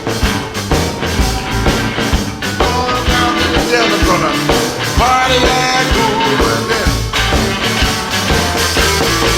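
Electric blues band playing an instrumental passage of the song: a lead instrument bending its notes over a steady drum beat and bass line.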